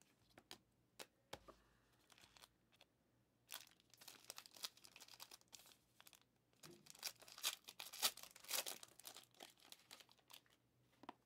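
Gold foil wrapper of a Gold Standard football card pack being torn open and crinkled by hand, in two spells of crackling, the louder one about two-thirds of the way through, after a few light clicks near the start.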